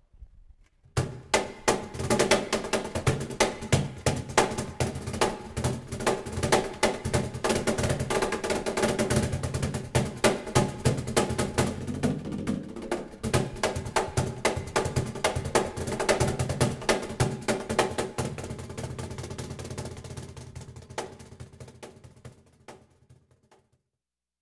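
Meinl cajón, a wooden box drum, played by hand in a fast, continuous pattern of slaps and bass strokes. It starts about a second in, grows quieter over the last few seconds and stops shortly before the end.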